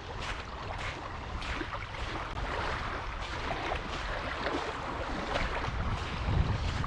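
Footsteps crunching through dry autumn leaves at a walking pace, over a steady outdoor hiss. A gust of wind buffets the microphone as a low rumble about six seconds in.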